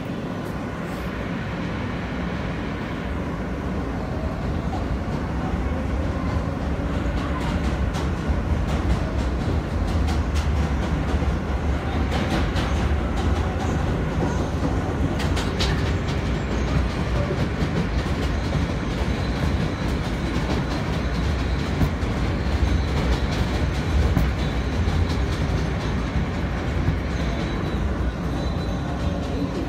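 New York City Subway J train running on the elevated line, heard from inside the car. It grows louder over the first few seconds as it gathers speed, then runs steadily with wheels clacking over the rail joints.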